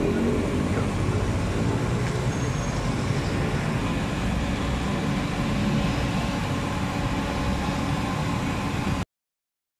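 Steady street ambience dominated by a low rumble of traffic, cutting off abruptly about nine seconds in.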